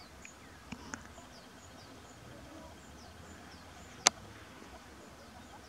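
Outdoor mountain ambience with short, high, falling chirps repeating about twice a second, from a small bird or insect. Two faint clicks come about a second in, and a single sharp click about four seconds in is the loudest sound.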